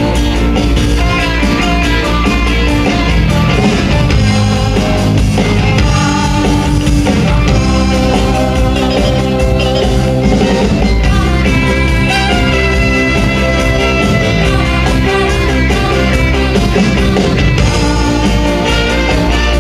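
A live band playing sustained, layered music over a steady low bass, with guitar among the instruments.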